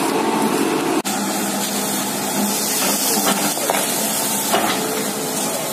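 Steady, loud hissing rush with a faint hum beneath it. The sound drops out for an instant about a second in.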